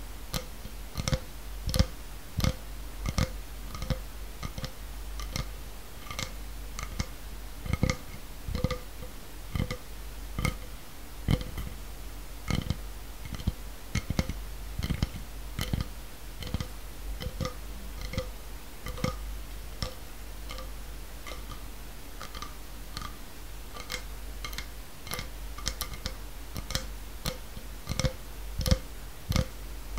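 Quick, irregular ASMR clicks and taps, two or three a second, many with a brief ringing note.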